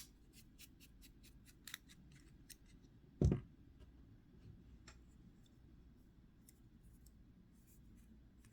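Small metal clicks and ticks of knife parts and a screwdriver being handled during disassembly, quick and close together at first, then sparse, with one dull thump about three seconds in.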